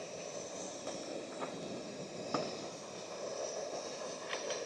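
Steady rushing background noise with a few faint, short clicks and taps from a small knife slicing pepperoni.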